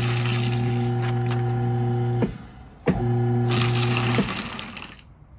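Destroyit 4005CC cross-cut paper shredder running and shredding paper, a steady motor hum under the noise of the cutters. It stops with a click about two seconds in, starts again with a click a moment later, runs for just over a second on a fresh sheet, and stops again.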